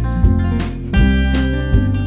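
Background music: strummed acoustic guitar over sustained bass notes, with a strum about every three-quarters of a second.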